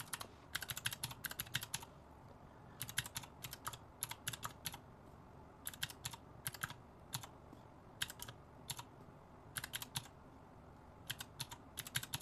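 Calculator keys being pressed in quick runs of clicks, a few groups of several taps each with short pauses between, as figures are entered and added up.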